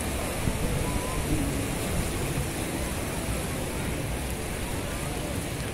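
Sea waves breaking and washing on the beach: a steady rush of surf.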